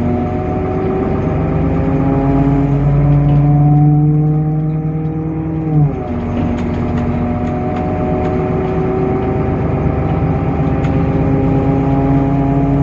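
DAF PR 228 diesel engine of a Temsa Avenue LF bus pulling under acceleration, its note climbing steadily. About six seconds in, the ZF automatic gearbox shifts up and the pitch drops sharply, then it climbs again.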